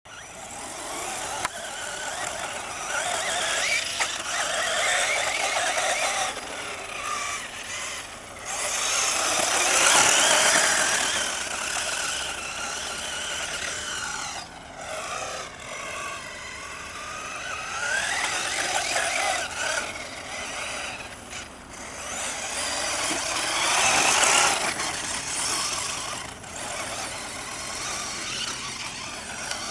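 Electric RC buggy's brushless motor whining, its pitch falling and rising as the throttle changes, with the tyres churning loose sand. The sound swells twice as the buggy comes close.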